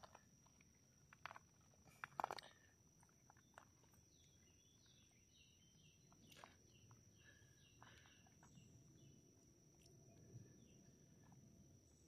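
Faint trail ambience: two crunches of gravel underfoot, about one and two seconds in, then a distant bird singing a run of short, repeated falling notes, over a steady high-pitched tone.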